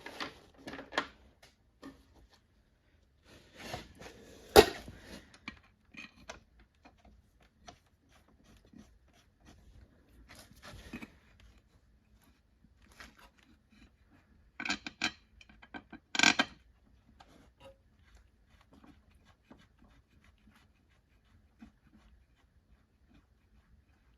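Intermittent clinks and knocks of metal parts being handled as an aluminium snowmobile chain case cover and its bolts are fitted. There is one sharp knock about four and a half seconds in and a cluster of clinks around a quarter of a minute in.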